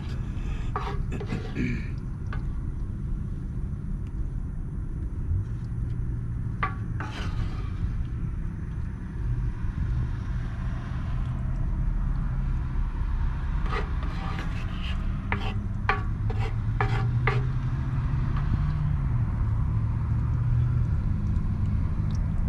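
Kitchen utensils and containers handled while filling pita wraps: sharp clicks and scrapes in small clusters near the start, about seven seconds in, and several between about thirteen and seventeen seconds, over a steady low rumble.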